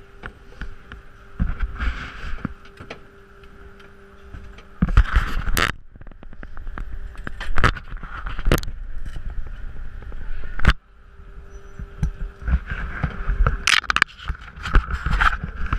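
Skis scraping and crackling over snow, with many sharp clicks and a loud low rumble of wind buffeting the microphone. The sound comes in surges, loudest around five to six seconds in, drops off sharply around eleven seconds in, then builds again.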